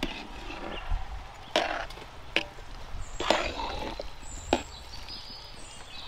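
Spatula stirring chopped coriander into spiced curd in a large pan, scraping and knocking against the pan in four sharp clacks spread over a few seconds.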